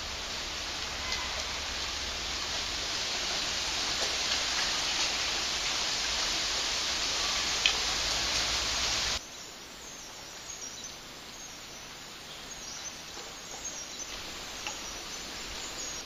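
Steady outdoor hiss of forest ambience with a few faint bird chirps. It drops abruptly to a quieter ambience about nine seconds in.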